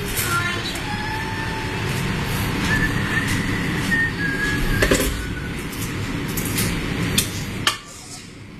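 A stainless skillet of king crab legs sizzling and steaming with a steady hiss, with a faint whistling tone over the middle. Metal tongs click against the pan a few times as pieces are lifted out. The hiss drops away suddenly near the end.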